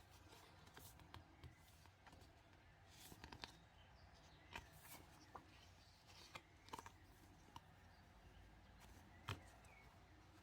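Faint handling of paper and plastic stationery items: soft rustles and scattered light taps and clicks. A few faint bird chirps come through an open window.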